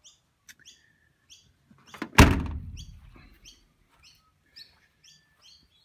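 The rear door of a 1989 Mitsubishi Pajero short-wheelbase, the one carrying the spare wheel, slams shut about two seconds in, with a brief metallic ring after the impact. A small bird chirps repeatedly in the background.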